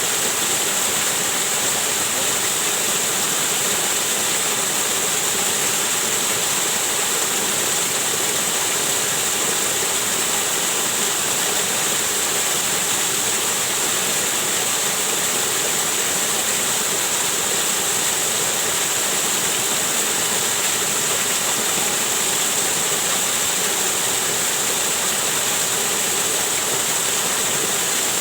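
Waterfall rushing steadily: a constant, even roar of falling water with no changes.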